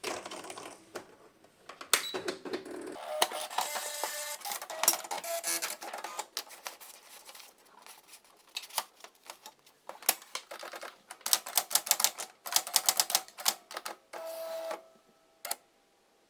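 Facit T165 typewriter typing: sharp type strikes in irregular bursts, with quick runs of keystrokes, through most of the stretch.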